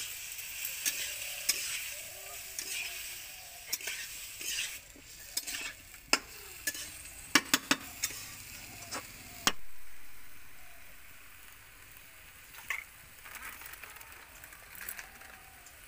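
Chicken pieces sizzling in hot oil in a steel kadai while a metal spatula stirs and scrapes them, with sharp clinks of the spatula against the pan. The sizzle dies down after about ten seconds, leaving only a few clinks.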